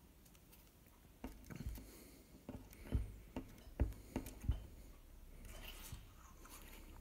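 Faint close handling noise: a quick string of soft knocks and bumps over about three seconds, then a short papery rustle of the tissue being handled.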